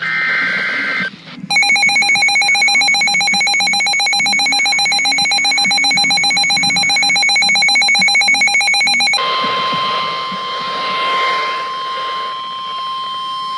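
Emergency Alert System warning tones: the last digital header burst chirps for about a second. Then the harsh, rapidly beating two-tone attention signal sounds for about eight seconds. About nine seconds in it switches to a single steady alert tone.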